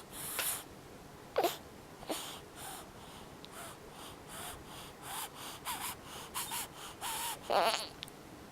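Snoring: a run of irregular short, raspy breaths with faint whistling squeaks, coming closer together and louder toward the end.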